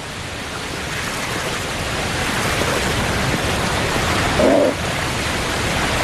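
Rushing river water: a steady, dense rush of fast current that slowly grows louder, with one brief louder sound about four and a half seconds in.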